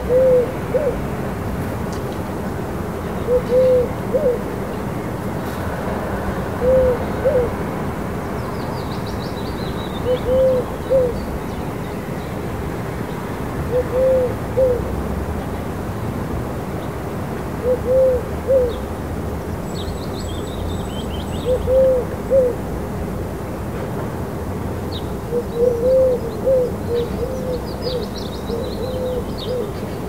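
Feral pigeon cooing: a low, arched two-part coo repeated about every three and a half seconds over a steady low background rumble. Faint high chirps of small songbirds come in now and then, mostly in the second half.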